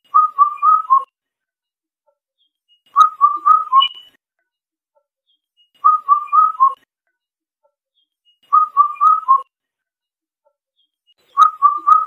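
Indian cuckoo singing its four-note whistled call, the last note lower than the first three. The phrase repeats about every three seconds, five times.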